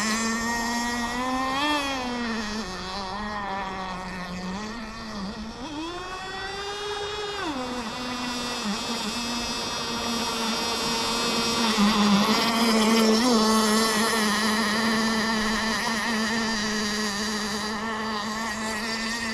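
Kyosho GT32 marine two-stroke nitro engine of an RC boat running on the water, its high note dipping and rising with the throttle before holding steady, loudest about two-thirds of the way through.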